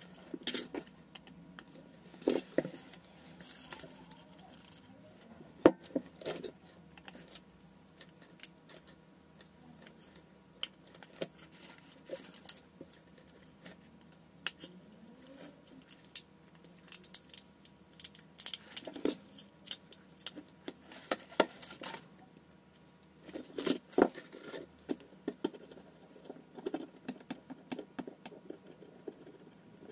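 Scattered clicks, taps and rustles of small tools and smartphone parts being handled on a silicone repair mat while a Samsung Galaxy A12 is taken apart. One sharp click comes about six seconds in, and busier clusters of handling come past the middle and near the end.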